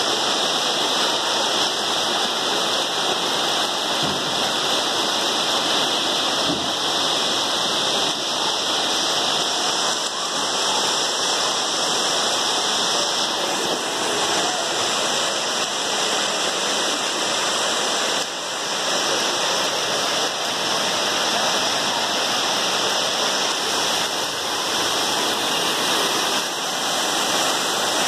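Heavy rain falling steadily onto a waterlogged paved lane and parked cars.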